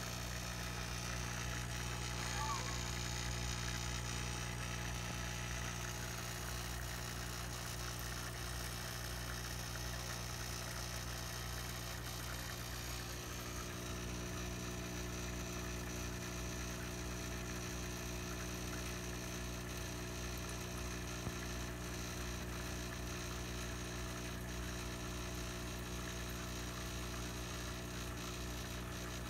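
Aquarium pump humming steadily, a constant low electrical drone.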